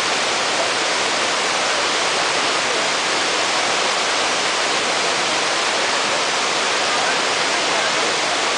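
Small waterfall pouring over rocks into a mountain stream: a steady, even rush of water.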